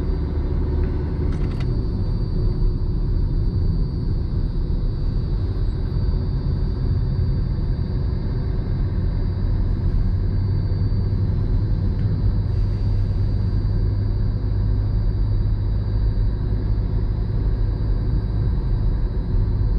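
A car being driven in third gear, heard from inside the cabin: a steady low rumble of engine and road noise, with the low hum growing a little stronger about halfway through.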